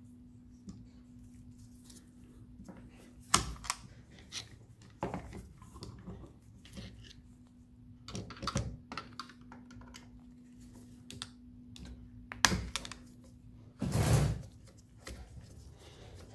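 Plastic diesel fuel filter housing knocked and shifted against the jaws of a bench vise: scattered sharp clicks and knocks, the loudest about three seconds and twelve seconds in, and a heavier thump near fourteen seconds. A steady low hum runs underneath.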